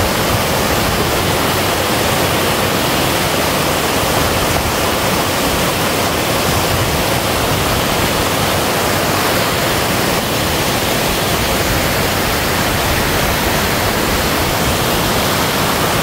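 Waterfall: falling water rushing steadily as an even, unbroken hiss.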